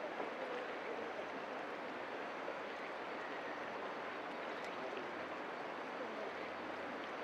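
Steady sizzling hiss of food cooking on an iron griddle over a wood fire, with a few faint crackles.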